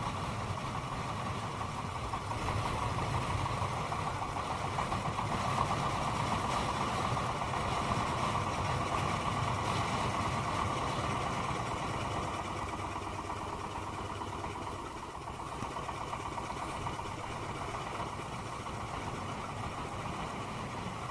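Boat engine running steadily, with no clear change in speed.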